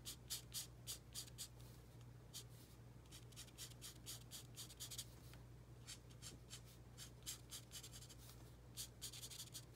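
Fine bullet tip of a Stampin' Blends alcohol marker stroking across cardstock: faint scratching in quick, short, irregular strokes.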